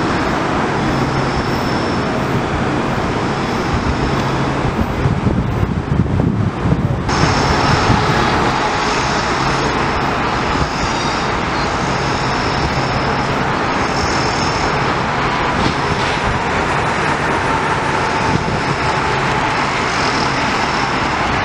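Metro-North M8 electric multiple-unit trains running, a loud steady rumble of wheels and traction equipment. A low hum in the first few seconds gives way abruptly about seven seconds in to the sound of a second M8 coming up the tracks.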